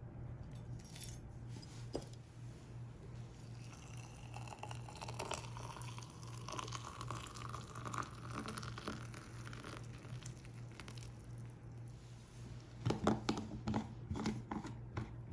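Water poured into a stainless steel insulated food jar, its pitch rising as the jar fills. Near the end, a few sharp clicks and scrapes as the plastic lid is screwed on. A steady low hum runs underneath.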